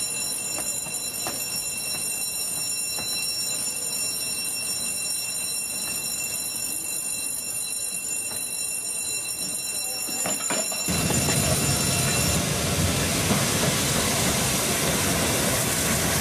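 A steam locomotive, the Peppercorn A1 Pacific 60163 Tornado, sounds suddenly loud and close about eleven seconds in as a dense, steady rush of noise. Before that there is only quiet background with a few faint clicks and thin high steady tones.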